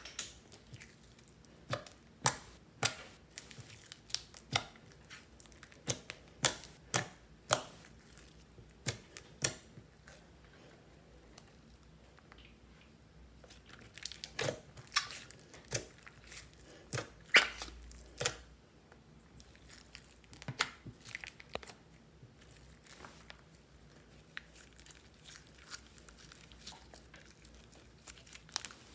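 Thick white slime being peeled up, folded and squeezed by hand, giving irregular sharp clicks and pops, in bunches with short quiet gaps; the loudest comes about two thirds of the way in.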